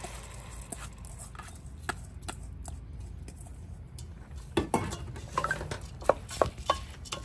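Metal spoon clinking and scraping against a cooking pot as washed rice is stirred into the spiced vegetables. The clicks come sparsely at first, then thicker and louder over the last few seconds.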